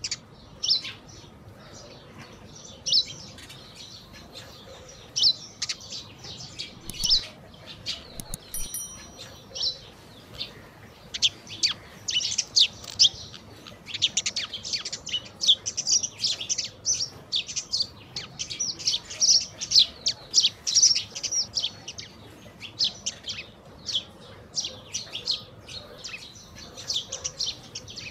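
A flock of Eurasian tree sparrows chirping while they feed: many short, high chirps overlapping, busiest through the middle stretch.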